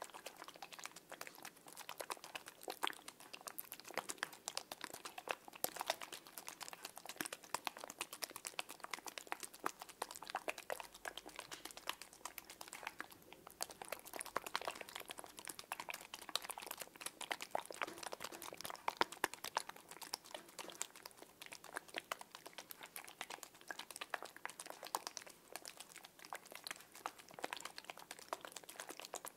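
Small blue water-filled plastic fruits being squeezed and rubbed between the fingers, a steady, dense crackling of tiny clicks.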